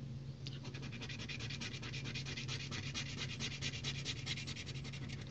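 Scratch-off lottery ticket being scratched: rapid, even back-and-forth strokes rubbing the latex coating off the card, starting about half a second in.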